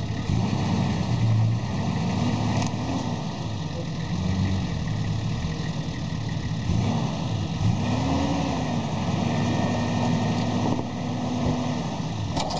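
A vehicle engine running, its revs rising and falling several times, then held steady for a few seconds near the end.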